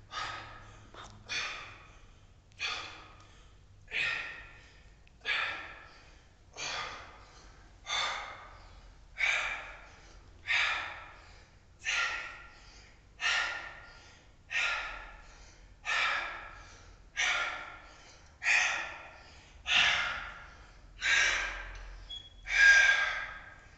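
A man breathing hard through a set of alternating dumbbell curls: a short, forceful breath with each rep, about every 1.3 seconds. The breaths grow a little louder near the end of the set.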